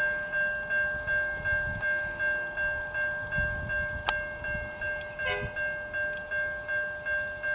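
Level crossing warning bell ringing steadily at about three strokes a second, sounding for an approaching train. A single sharp click comes a little past halfway.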